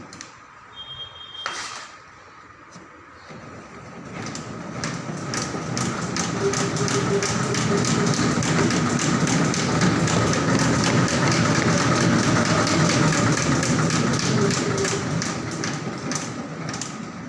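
Exercise machine with a noise fault: a short beep and a click, then the machine starts up and runs with a fast, continuous knocking and a steady whine, growing louder toward the middle and easing off near the end.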